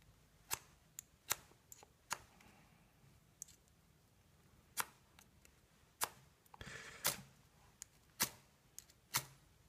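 A small ferrocerium rod struck with a small metal striker, several faint scrapes at irregular intervals, with one longer rasp about seven seconds in.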